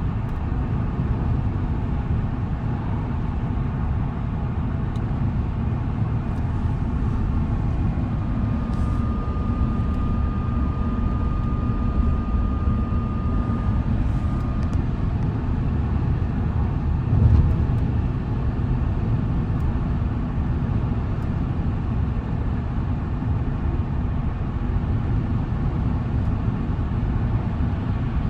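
Steady road and tyre noise from a Tesla Cybertruck cruising at highway speed while towing a trailer; its electric drive adds no engine sound. A thin steady high tone sounds for about six seconds midway, and there is a single low bump about seventeen seconds in.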